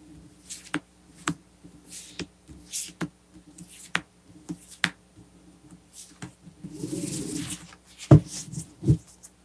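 Tarot cards handled on a velvet-covered table: cards slid and picked out of a fanned deck, with scattered light taps and soft swishes of card stock. Two louder knocks come near the end as the deck is gathered up.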